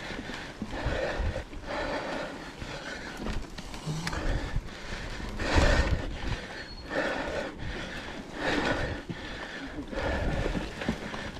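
Mountain bike riding over a leaf-covered dirt singletrack: tyres crunching through dry fallen leaves and the bike rattling over bumps in uneven surges, the loudest jolt about halfway through.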